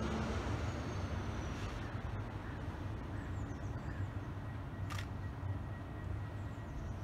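DB Regio double-deck regional train standing at the platform with its on-board equipment running: a steady low hum. A single sharp click comes about five seconds in.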